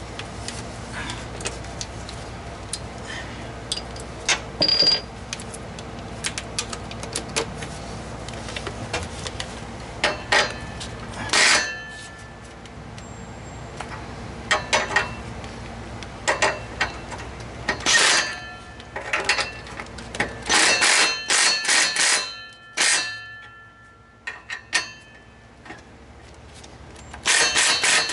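Ryobi cordless impact wrench running in short bursts of rapid hammering, then one longer run near the end, as it drives home the exhaust flange bolts on a newly fitted catalytic converter. Before that, scattered metallic clinks and knocks of tools and parts being handled.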